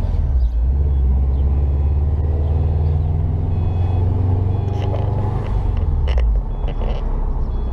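2011 Subaru WRX's turbocharged flat-four engine running with a steady low rumble that drops off about six seconds in.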